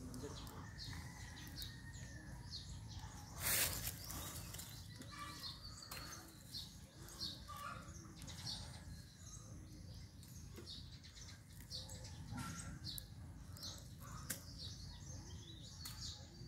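Outdoor rural ambience of birds chirping again and again in short calls, over a steady low rumble. About three and a half seconds in there is one brief, loud noise.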